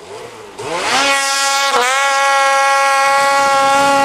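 Ski-Doo snowmobile engine revving hard: the pitch climbs quickly, dips for a moment, then holds steady at high revs.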